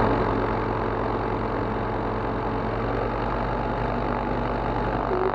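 Rotax 912 ULS four-cylinder aircraft engine and propeller running steadily at low power, heard from outside the cabin.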